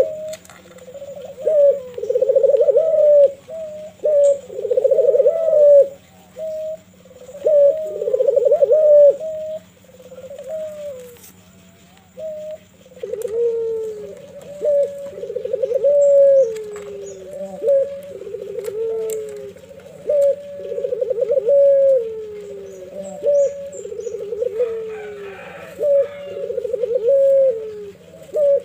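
Barbary dove (puter) cooing over and over: a string of low, rolling coos about a second each, separated by short pauses, the later coos ending in a falling glide.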